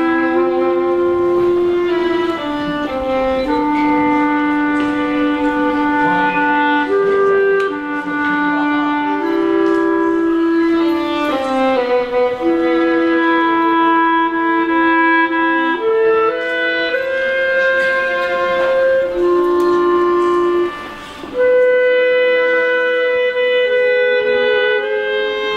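Slow instrumental duet: a higher and a lower melody line in long held notes, with a short break in the playing late on.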